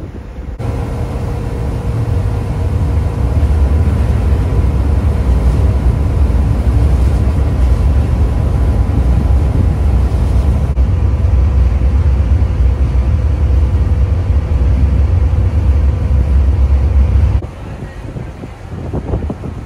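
Deep, steady rumble of the ferry Tachibana-maru's engines and machinery heard from its open deck, with a thin steady hum above it. It starts abruptly about half a second in and falls away near the end, leaving wind and water noise.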